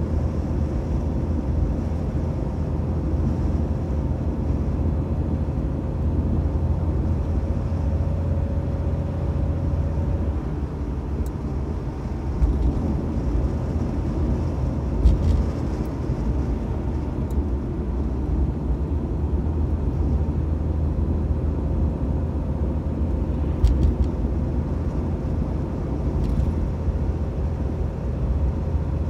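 Mitsubishi Debonair car driving along a road, with steady engine and tyre noise. Two brief sharp knocks come through, one about halfway and one about three quarters of the way in.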